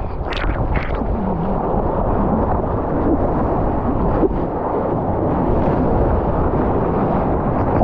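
Seawater rushing and splashing around a surfboard-mounted action camera, with wind buffeting the microphone, as the board moves through breaking whitewater; a few sharper splashes stand out near the start and about four seconds in.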